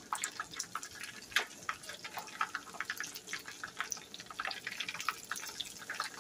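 Chicken wings deep-frying in peanut oil in a skillet: a steady sizzle full of quick, irregular crackles and pops from the bubbling oil.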